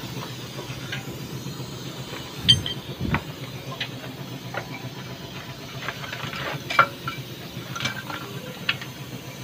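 Scattered metal clinks and knocks of steel drum-brake parts being handled as the brake shoes and their S-cam rollers are taken off, with two louder knocks about two and a half seconds in and near seven seconds.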